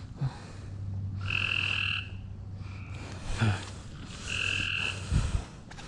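A frog calling in short buzzy calls, three in a row, each well under a second and spaced about a second and a half apart, the middle one weaker. A steady low hum runs underneath, and a couple of soft low thumps come near the end.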